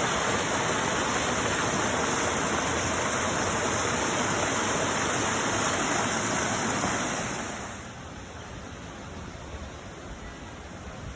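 Rushing water, a steady even hiss that drops sharply about seven seconds in, losing most of its high end, and goes on more quietly.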